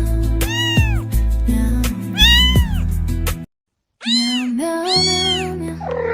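Cat meowing four times, each meow rising and falling in pitch, over background music; the sound drops out completely for about half a second midway.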